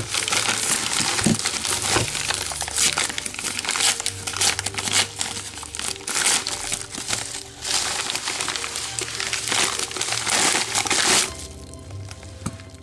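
Packaging being crumpled and unwrapped by hand, a dense irregular rustling and crinkling that stops about a second and a half before the end.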